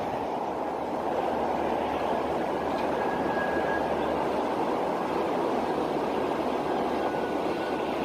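Steady, even noise of distant road traffic, with a faint thin high tone briefly about three seconds in.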